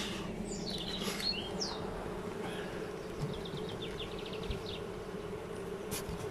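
Honeybees buzzing around open hives: a steady, even hum with a few short high chirps over it early on and a quick high trill about four seconds in.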